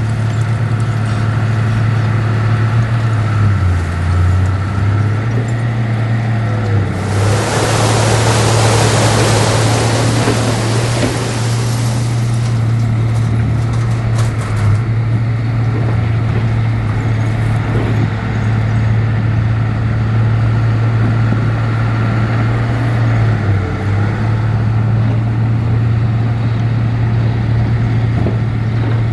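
Heavy diesel engine of earthmoving machinery running steadily with a deep drone, its pitch dipping briefly twice. A loud rushing noise rises about seven seconds in and fades out over about five seconds.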